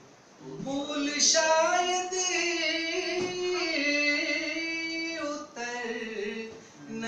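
A man singing lines of Urdu verse unaccompanied into a microphone, holding long notes that slide from pitch to pitch. The voice comes in about half a second in, with short breaks between phrases.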